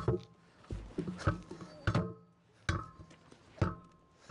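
A steel tractor wheel rim clanking repeatedly, a sharp knock every second or less that rings briefly at the same pitch each time, as a heavy dual tire is worked into place against the tractor's wheel.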